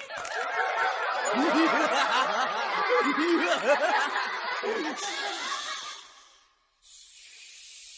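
Laughter from several voices at once, overlapping chuckles and snickers that fade out about six seconds in. A soft, even rustling hiss follows near the end.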